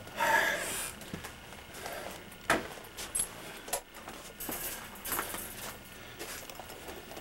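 Scattered light knocks and clicks from handling: a short rustle at the start, one sharp click about two and a half seconds in, then fainter taps, as the camcorder is carried and moved about.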